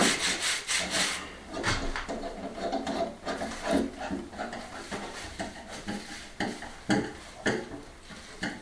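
Hand screwdriver turning the screw that locks a sink waste plug fitting together in a stainless steel sink: a run of short metallic scrapes and clicks, quick at first and then spaced out.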